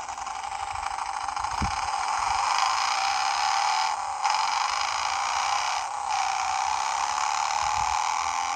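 Hornit Mini battery-powered bicycle horn playing its motorbike sound effect through its small speaker: a recorded motorcycle engine running steadily and building slightly, with two brief dips about 4 and 6 seconds in.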